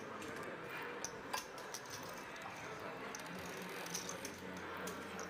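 Quiet room tone at a poker table, with a few faint scattered clicks of poker chips.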